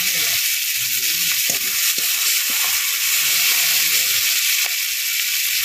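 Small prawns frying in hot oil in a steel wok, a steady loud sizzle with a few sharp crackles.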